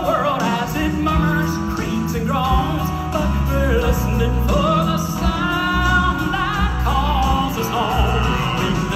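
Male gospel vocal quartet singing live with amplified piano and band accompaniment, heard through the hall's sound system.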